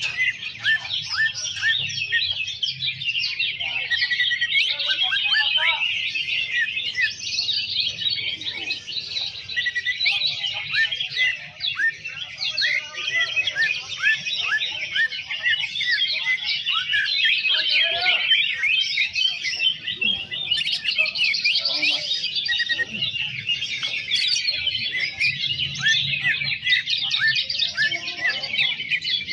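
Many caged cucak ijo (green leafbirds) singing at once, as at a songbird contest: a dense, unbroken chorus of overlapping chirps and whistles, with a faint low murmur underneath.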